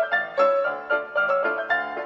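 Background music: a melody of short notes struck at an even, brisk pace.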